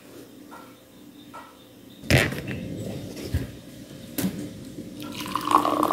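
Faint room tone, then from about two seconds in the clatter of a thermos flask and glass being handled on a table, with one sharp knock. Near the end, hot coffee begins pouring from the thermos into a glass, growing louder.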